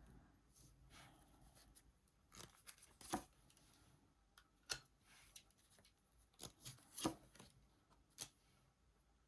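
Faint, scattered taps and rustles of tarot cards being handled and laid out on a table: about eight short clicks spread over several seconds.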